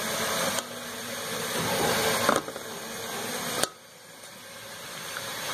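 Oil and spiced masala sizzling in a pan as whole climbing perch (koi fish) are laid in: a steady hiss that drops away abruptly a few times.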